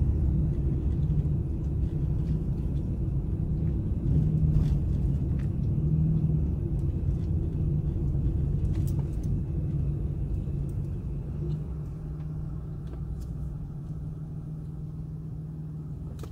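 Low, steady engine and tyre rumble heard from inside a slowly moving vehicle, growing quieter over the last few seconds.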